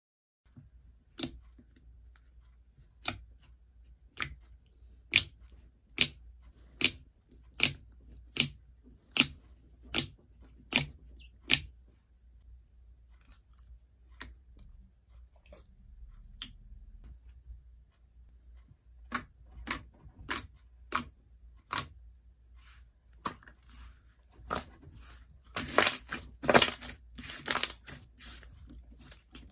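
Slime being squeezed and poked by hand, giving sharp, separate popping clicks about once a second, then a denser run of crackling pops near the end.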